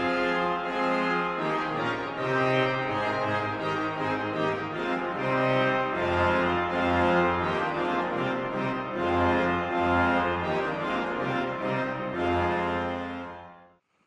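Organ music: slow, sustained chords over a bass line, fading out near the end.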